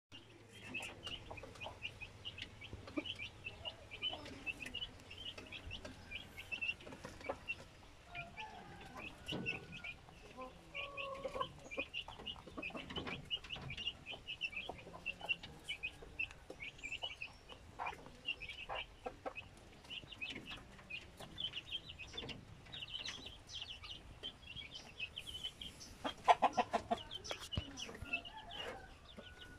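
Chickens clucking and chirping in a steady stream of short, high calls, with a louder burst of clucks near the end.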